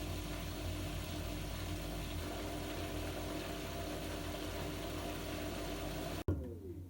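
LG washing machine running with a steady mechanical hum and rumble, the unexplained noise it is making. Near the end the sound cuts off suddenly with one sharp click.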